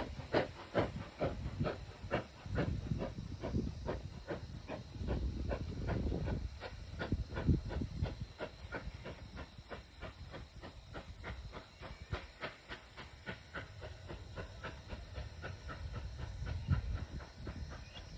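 Frisco 1630, a 1918 Baldwin 2-10-0 "Russian Decapod" steam locomotive, working as it pulls away: an even beat of exhaust chuffs, about three a second, growing fainter in the second half.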